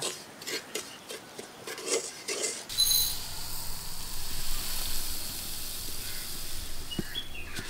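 A wooden spatula scraping and stirring semolina as it dry-roasts in a clay pot, in short scratchy strokes. After about two and a half seconds it gives way to granulated sugar pouring from a plastic jar into a steel tumbler: a steady hiss, with a brief metallic ring as the pour starts.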